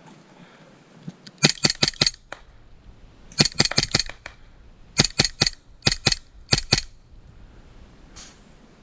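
Airsoft gun firing in short rapid bursts of sharp cracks, about five bursts of two to five shots each over roughly five seconds.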